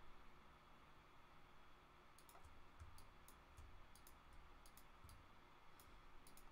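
Faint, irregular clicking of a computer mouse and keyboard used to work the editor, starting about two seconds in, over a low steady hum.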